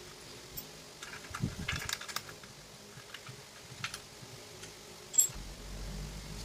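Light clicks and clatter of metal parts being handled and fitted together while assembling an angle grinder stand, with a cluster of small knocks about a second and a half in and one sharp click about five seconds in.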